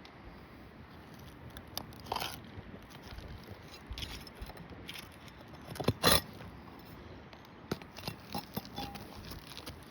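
Asphalt roof shingles being pried up and worked loose by hand: scattered crunches, scrapes and crackles, the loudest a sharp crack about six seconds in.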